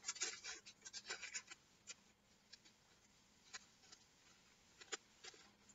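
Faint crinkling and rustling of a cut-out craft fish being crumpled and shaped by hand, busy for the first second and a half, then only a few scattered crackles.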